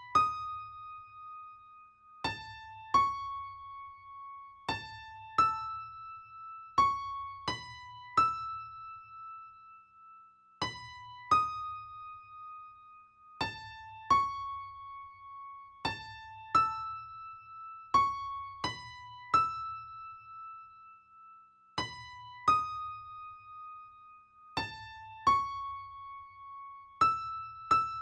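Slow, sparse keyboard melody from an original film score: single high notes that ring on, struck one at a time, with a short phrase repeating about every eleven seconds. Each note carries a soft low thump.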